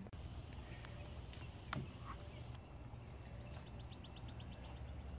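Quiet outdoor background: a steady low rumble with a few soft clicks, and a brief faint run of rapid high ticks about four seconds in.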